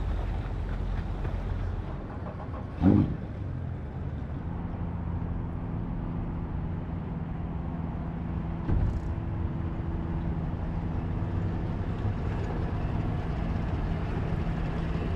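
Boat motor idling steadily as the skiff comes alongside the dock. There is a sharp knock about three seconds in and a smaller one near nine seconds.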